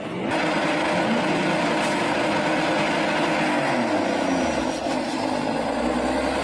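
Engines of a semi truck and a Corvette running hard in a drag race: a loud, steady engine noise that swells at the start, with wavering engine tones and a deeper hum coming in near the end.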